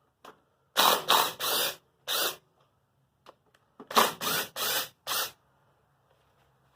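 Hand ratchet on a 10 mm socket loosening bolts, clicking in short bursts on each back-swing: about four strokes, a pause, then about four more.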